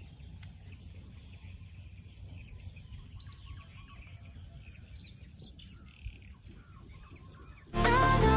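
Faint open-swamp ambience: scattered bird chirps over a steady high insect drone. Near the end, loud background music comes in suddenly.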